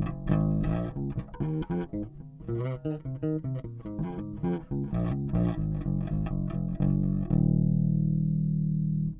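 OLP MM3 passive five-string electric bass played through the rear half of its single humbucker: a quick run of plucked notes, then one note held for about two seconds near the end.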